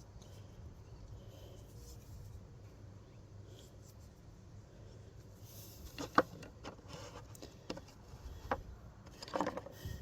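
Quiet room tone, then a few light, separate clicks and knocks in the second half from vintage spiral screwdrivers being handled and set down.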